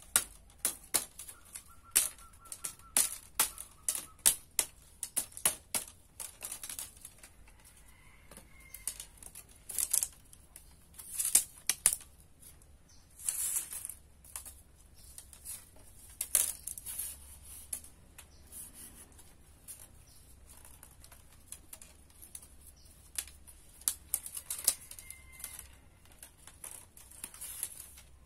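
Thin bamboo strips clicking and clattering as they are handled and woven, in irregular sharp clicks, sometimes several in quick succession.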